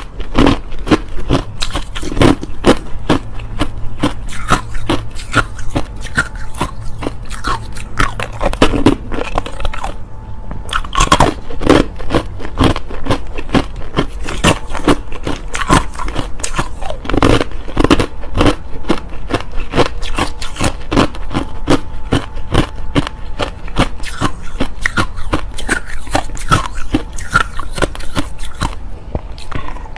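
Close-up crunching of hard crushed ice being bitten and chewed: rapid, loud, sharp cracks, with a brief lull about ten seconds in.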